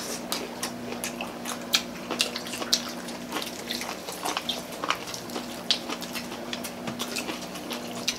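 Several people eating fried chicken close to the microphone: wet chewing and lip-smacking clicks, several a second and irregular, with crackly fried chicken skin being torn apart by hand.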